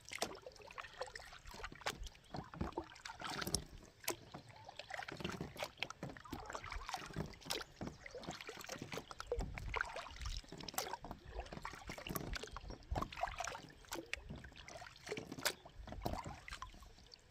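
Water splashing and dripping around a kayak in the rain, in many small irregular splashes and drips.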